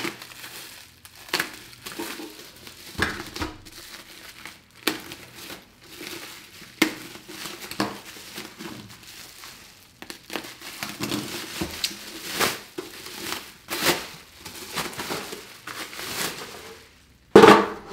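Bubble-wrap packaging crinkling and rustling in irregular handfuls as it is pulled off an amplifier chassis, with a sharper, louder handling noise near the end.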